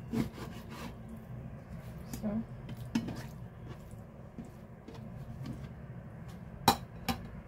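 A cleaver cutting raw pork on a plastic cutting board: a few scattered knocks of the blade on the board, with the soft squish of the raw meat being handled, over a steady low hum. A sharp knock near the end is the loudest sound.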